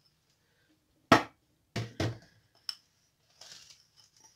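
A small ceramic bowl knocking sharply against a large wooden bowl, once hard about a second in and twice more soon after, as ground peanuts are tipped and tapped out of it, then a soft scrape of the peanut meal.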